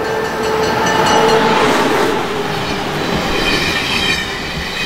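Amtrak HHP-8 electric locomotive and its stainless-steel passenger cars passing close at speed: a loud, steady rush of wheels on rail and air. High thin ringing tones come in after about three seconds as the cars go by.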